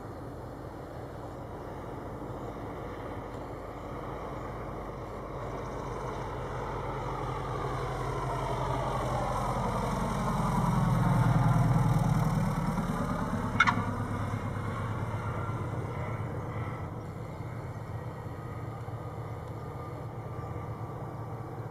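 A Cessna 172RG's four-cylinder Lycoming O-360 engine and propeller running at low landing power, swelling steadily as the plane comes in close over the runway and then fading as it rolls away. Just after the loudest point the tyres give one brief chirp at touchdown.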